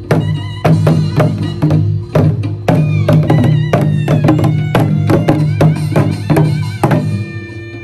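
Korean traditional drum-dance music: quick, rhythmic strikes on buk barrel drums over a steady low drone, with a wavering high melody line above. The drumming stops about seven seconds in, leaving the held tones.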